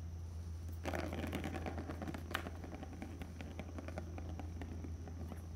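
Quick light pattering, clicking and scratching from a playing Maine Coon kitten's paws and claws on a surface, starting about a second in and going on in a busy run, over a steady low hum.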